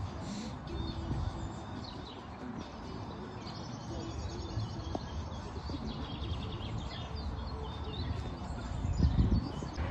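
Songbirds chirping and singing, over a low rumble that swells briefly near the end.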